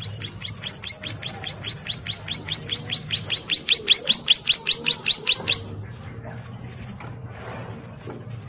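Caged prinia (ciblek) singing a rapid run of high, falling notes, about seven a second, growing louder and then stopping abruptly about five and a half seconds in.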